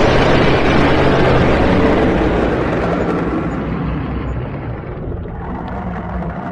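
Dragon sound effect: a loud, noisy rush over a low rumble that is loudest at the start and slowly fades away.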